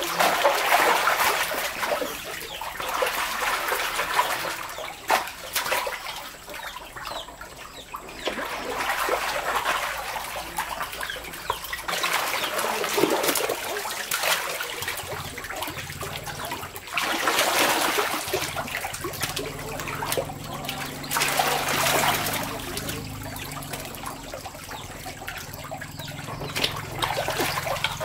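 Shallow water splashing and dribbling as catfish are scooped with a plastic basket from a nearly drained concrete tank, the fish thrashing in the shallow water. The splashes come in bursts every few seconds.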